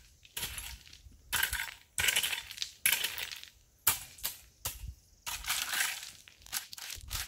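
A rake dragged through 3-inch clean gravel, the stones clinking and grinding in a series of short, irregular scrapes.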